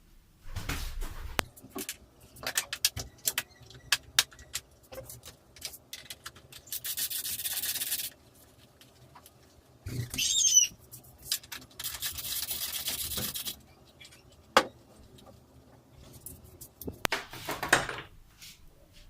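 Metal tools and plastic body parts clicking and knocking as nuts are undone and panels worked loose on a motorcycle, with two stretches of scraping or rubbing of about a second each.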